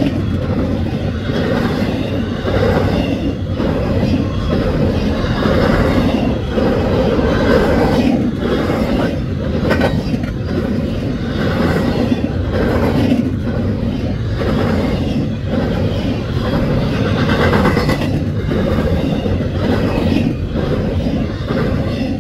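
Empty double-stack intermodal well cars of a freight train rolling past at speed: a steady loud rumble of steel wheels on rail, broken by repeated clacks as the wheels go by.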